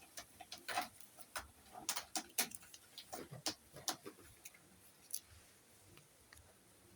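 Irregular light clicks and short crackles, several a second at first and then thinning out, typical of hands handling small craft materials such as paper, tape or a marker.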